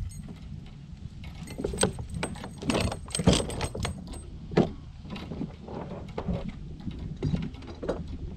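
Fishing reel being cranked and tackle handled aboard a kayak: irregular clicks and rattles, busiest in the first half, with a few sharper knocks, over a low steady rumble.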